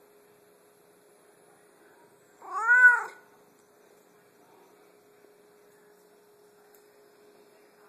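Savannah cat giving a single meow about two and a half seconds in, under a second long, its pitch rising and then falling.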